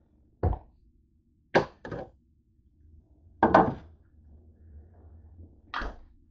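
Sharp knocks and clunks of things being handled: one soon after the start, two close together, a heavier knock a little past halfway, and a last one near the end.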